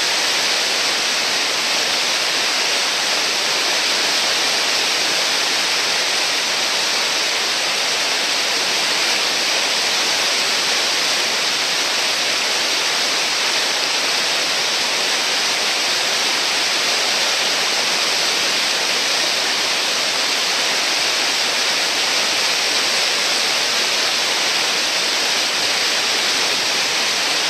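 Whitewater of a river rapid rushing steadily through a hole, a loud, even noise with no breaks.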